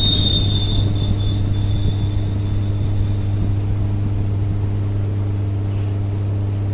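A steady low hum with a thin, high metallic ring that fades away over the first three seconds.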